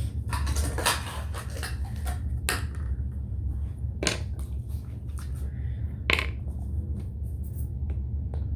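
Containers and utensils being handled and set down: several sharp knocks and clinks over a steady low hum, the loudest knock about six seconds in.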